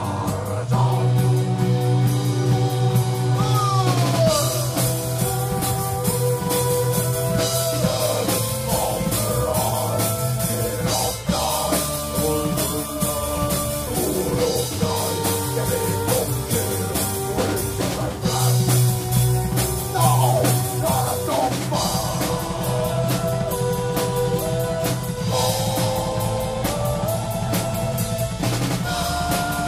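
Dark folk band playing live: drum kit, acoustic guitar and a sung melody over a steady low note, with no break.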